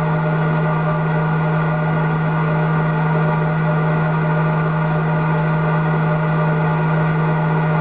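Three-phase electric motor running steadily with its control turned up to maximum: a loud, even hum with higher steady tones over it.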